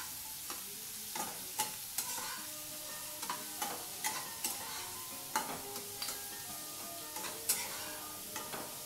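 Green peas and paneer cubes sizzling in a kadai as they are stir-fried. A slotted metal spatula scrapes and knocks against the pan in irregular strokes, about twice a second, over a steady hiss of frying.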